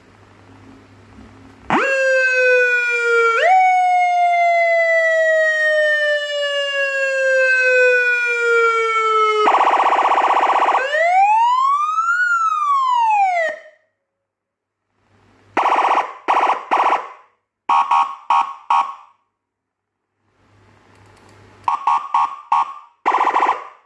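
Vietnamese police siren sounding through several patterns. It starts with a steady tone that jumps up once and then slowly falls for several seconds, then gives a short buzzing blast and a single wail that rises and falls. After a pause come three groups of quick, short honking pulses.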